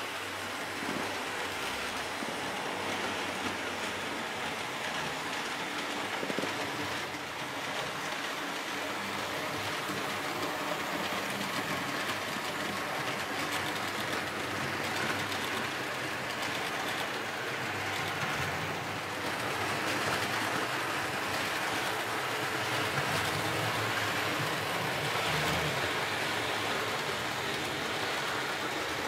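Model freight train hauled by a Bm 4/4 diesel locomotive running over the layout's track: a steady rolling clatter of the wagons' wheels on the rails, a little louder about twenty seconds in.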